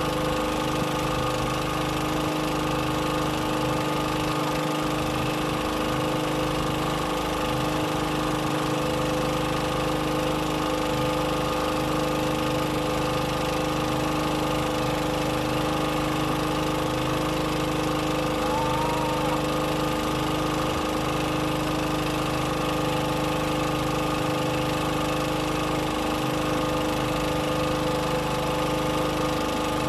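Boat engine running steadily at an even pace, a constant drone with a pulsing low throb.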